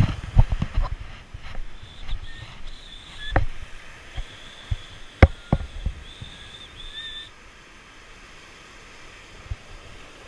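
A freshly landed black perch flopping and slapping on beach rocks: a string of sharp knocks over the first six seconds, then quieter. Faint surf washes behind it, and a faint thin high whine comes and goes in the middle.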